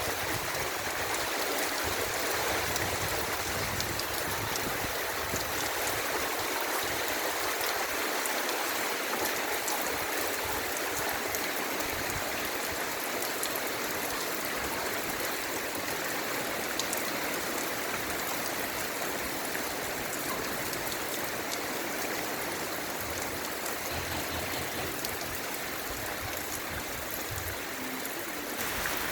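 Heavy rain pouring steadily, a dense even hiss of falling water with many fine drop ticks.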